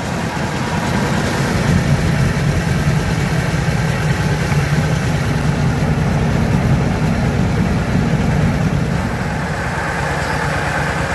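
Engine-driven mobile rice mill (huller and polisher) running steadily with a deep, even hum. A higher hiss grows near the end.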